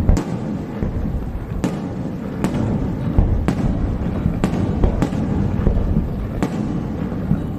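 Aerial fireworks bursting: sharp bangs about once a second over a continuous low rumble of shells and echoes.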